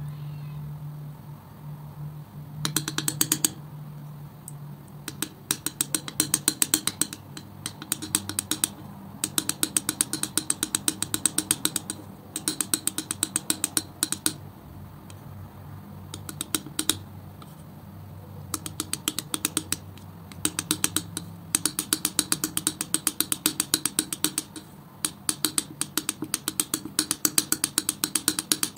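Metal palette knife spreading and mixing thick acrylic paint: runs of rapid, sticky clicks, each lasting a second or two, with short pauses between strokes.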